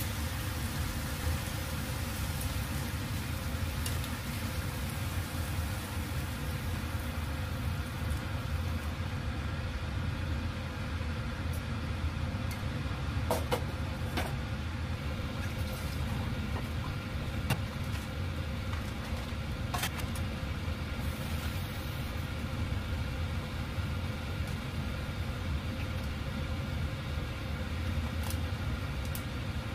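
Steady low rumble with a faint hum, and a few light clinks, the first pair about 13 to 14 seconds in as a glass lid is set on a frying pan.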